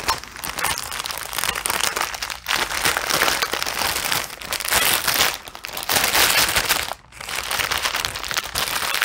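Clear plastic packaging crinkling continuously as bags of diamond-painting drills are handled and pulled out, with brief pauses a few times.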